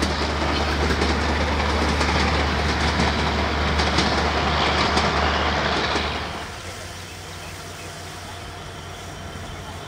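A passenger train passing close by, its wheels clattering over the rail joints under a heavy low rumble. About six seconds in the noise drops away abruptly to a quieter steady rumble as the train moves off.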